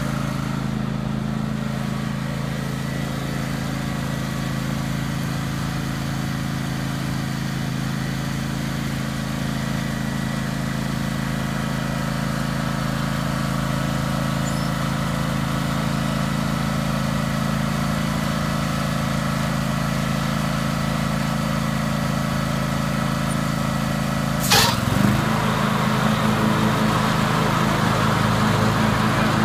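John Deere X320 riding lawn mower's engine running steadily as the mower is driven over gravel. Near the end a sharp click is heard, after which the engine note briefly dips and then runs a little louder.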